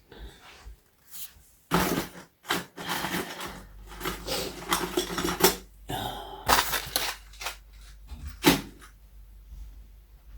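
Rummaging through small metal parts: irregular bursts of clinking and rattling, as of screws being stirred and picked through in a box or drawer. A low steady hum comes in about a third of the way through.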